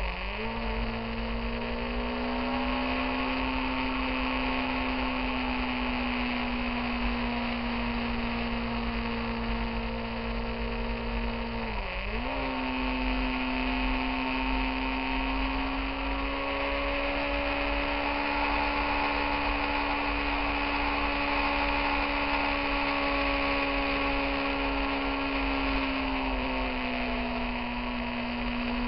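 Motorcycle engine running steadily at cruising revs, heard from a bike-mounted camera with wind and road hiss. The engine note dips briefly twice, at the start and about 12 seconds in, as on gear changes, and settles slightly lower near the end.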